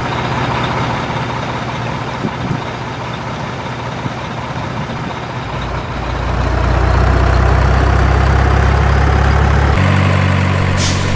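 Heavy truck engine running steadily, a sound effect laid over toy trucks that are pulled by hand. It swells louder about six seconds in and shifts to a new pitch near the end.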